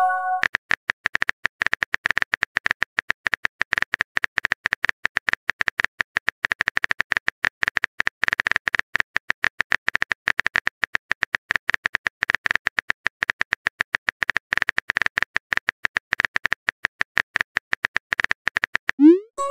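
Rapid, uneven keyboard clicking: the typing sound effect of a texting-story app as a message is typed out letter by letter.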